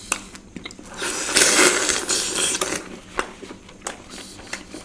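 Close-miked eating sounds: scattered sharp mouth and chewing clicks, with a louder noisy stretch of about a second and a half starting about a second in.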